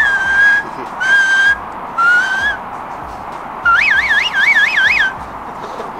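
Whistling: three short held notes about a second apart, the third rising slightly, then a longer warbling note whose pitch swings up and down about three times a second.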